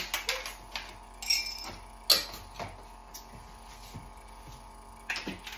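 Light clicks and knocks of small plastic lab supplies being handled and set down on a tabletop, about eight in five seconds. One, about a second in, has a short high ring. A faint steady hum runs underneath.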